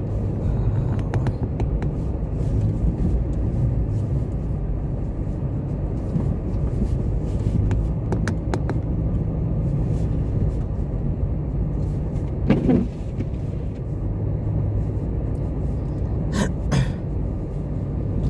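Steady low rumble of a motor vehicle running, with a few light clicks over it.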